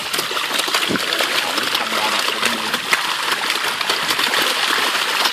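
Many small fish thrashing and splashing at the water's surface in a crowded feeding frenzy: a continuous crackle of small splashes and water patter.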